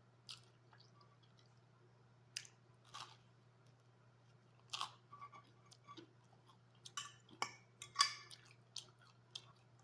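Close-miked chewing of spaghetti: wet mouth smacks and clicks, sparse at first and coming thick and fast about seven seconds in, over a steady low hum.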